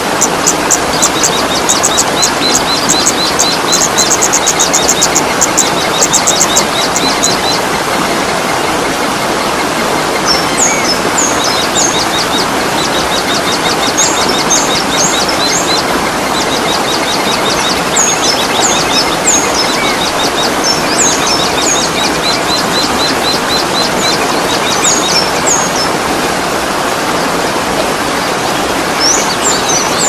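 Steady rush of a waterfall with songbirds calling over it: a fast run of repeated high notes during the first seven seconds or so, then scattered groups of sharp, sweeping high chirps.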